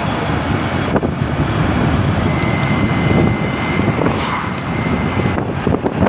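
Wind rushing over the microphone and road noise from a moving vehicle, loud and steady, with a faint high whistle for about three seconds midway.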